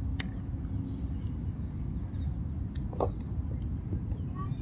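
Open-air ambience: a steady low rumble with faint bird chirps, and a single short sharp knock about three seconds in.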